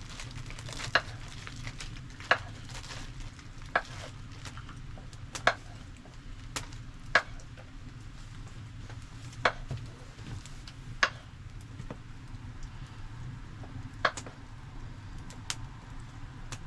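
Wood campfire crackling, with sharp single pops every second or two over a steady low rumble.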